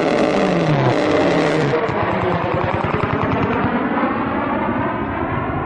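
Military jet aircraft passing overhead, its engines making a loud, continuous roar with a sweeping pitch that eases slightly toward the end.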